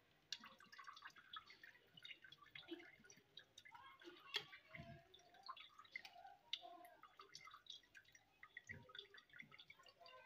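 Faint clicks and scrapes of a steel spoon pressing the cooked cream residue against a steel mesh strainer, squeezing the last of the homemade ghee through, with one sharper click a little over four seconds in.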